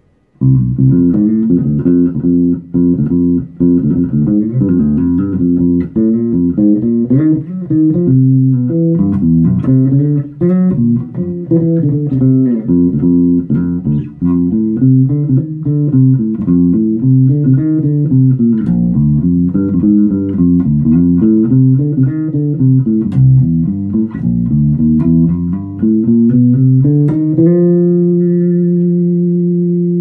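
Fender Jazz Bass played through an Ashdown MAG 300 bass amp and cabinet, with the EQ flat and no pedals: a solo bass line of quick plucked notes, ending on one held note that rings out near the end. The amp-to-speaker wiring is still stock, before the TurboTone cable modification.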